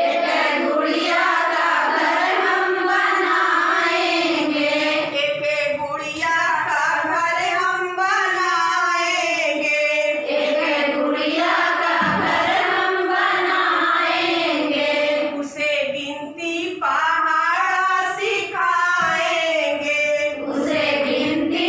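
A group of women singing a children's action rhyme together as one continuous sung melody.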